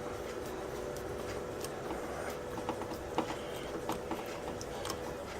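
Scattered light clicks and taps of a screwdriver and wire being worked onto an electrical outlet's screw terminal, one sharper click about three seconds in, over a steady faint hum.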